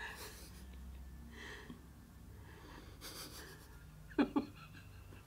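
Soft, breathy exhales and stifled, held-back laughter from people chewing papad while trying to stay silent, with two short sharp snorts of suppressed laughter about four seconds in.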